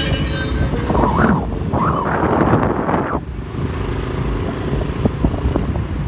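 Motorcycle engine running steadily while riding in traffic, with wind noise on the microphone. A louder rush of noise swells and fades between about one and three seconds in.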